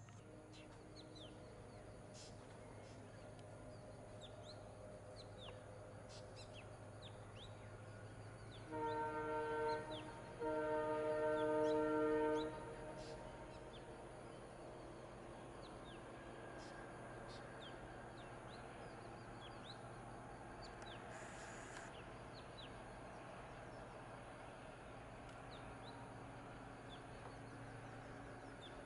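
Two blasts of a vehicle horn about nine seconds in, a steady chord of several tones, the first blast about a second long and the second about two seconds. Birds chirp throughout over a low steady hum.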